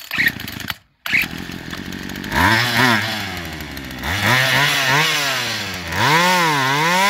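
Poulan Pro two-stroke chainsaw running with a steady hiss of compressed air over it. Its engine revs up and drops back three times, the last surge the longest.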